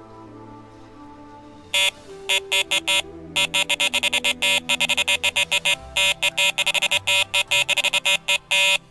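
Electronic carp bite alarm beeping: a few separate beeps about two seconds in, then fast, continuous runs of beeps, the signal of a fish taking line. Soft background music plays underneath.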